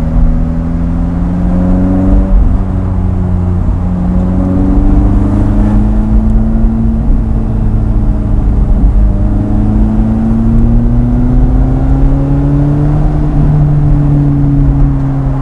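Lotus Elise 240 Final Edition's supercharged Toyota four-cylinder engine pulling under throttle. Its note climbs, falls back once about two seconds in, climbs slowly again later and eases off near the end.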